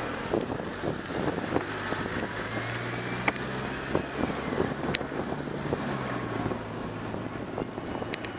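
Traffic and wind noise on a moving camera's microphone, with a vehicle engine humming close by for a few seconds in the middle and a few sharp clicks.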